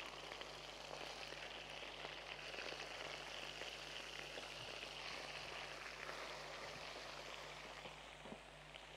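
Beef steak slices sizzling steadily as they fry and brown in a pot.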